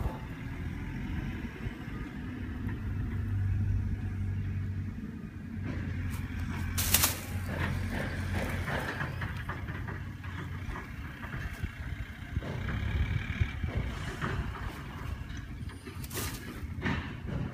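A steady low engine hum with rumble, like a motor running nearby, with two sharp knocks, one about 7 seconds in and one near the end.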